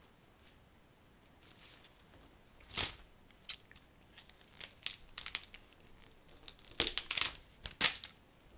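Scissors snipping and leaves being stripped from yellow flower stems: a string of short, sharp snips and brief rustles, irregularly spaced, with the loudest cluster near the end.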